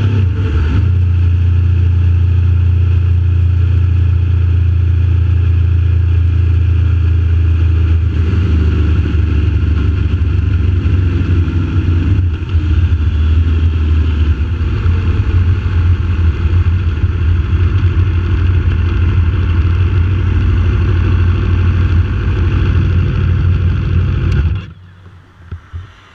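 Aprilia RSV4's V4 engine running steadily at road speed, heard from the rider's seat. Near the end the engine sound cuts off suddenly, as the engine is shut off with the bike stopped.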